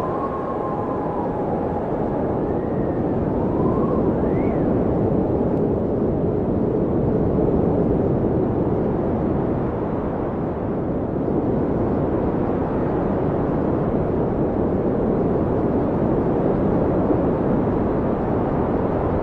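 Blizzard wind: a steady rushing of wind that swells gently, with a few faint howling whistles rising and falling in the first few seconds.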